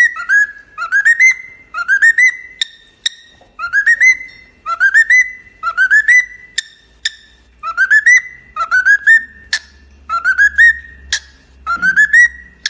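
Cockatiel whistling a string of short rising notes over and over, about one or two a second, with a few sharp clicks between them.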